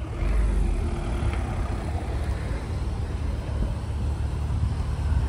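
A car engine idling: a steady low rumble.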